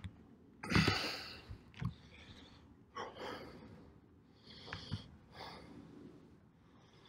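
A person breathing hard after cardio sprints: a few separate breathy exhales and sniffs, the loudest about a second in.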